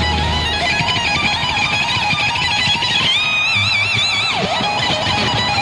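Electric guitar, a Stratocaster-style solid-body, playing a lead solo over the band: held high notes with fast, wide vibrato, and a quick dip in pitch and back just past four seconds in.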